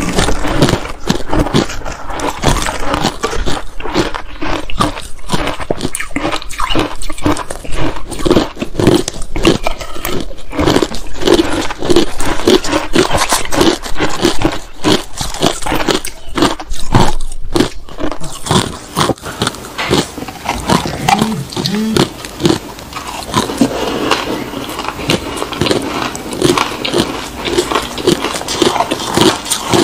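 Matcha-dusted ice crunched and chewed close to the microphone, two eaters' crunching layered together in a dense, crisp run of crunches that eases a little in the last third.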